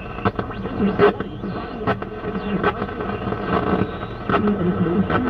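The original dash radio of a 1966 Ford truck being tuned by hand across the dial: static and whistling tones, with short snatches of broadcast voices and music sliding in and out.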